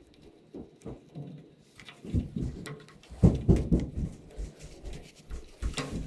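Close handling sounds of fingers working a small brass fitting into a gas water heater's control valve: irregular light scrapes, rubs and taps, sparse at first and busier from about two seconds in.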